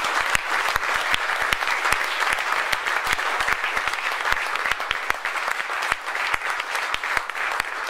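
An audience applauding: a long, steady round of many hands clapping.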